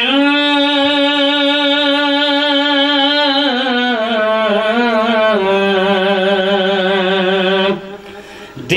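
A man singing a manqabat (an Urdu devotional poem) in one long drawn-out note, wavering and stepping down in pitch about halfway through. The note breaks off about a second before the end, and the singing starts again right at the end.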